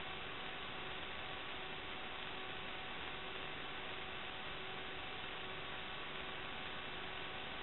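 Steady hiss with a few faint, unchanging tones: electrical noise on an FPV DVR's audio track.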